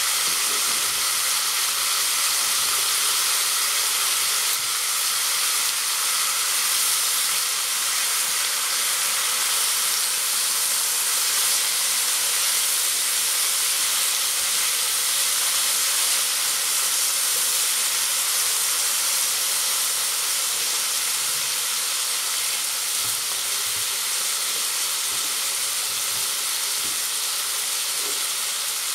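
Streaky bacon rashers frying in a non-stick frying pan: a steady, even sizzle.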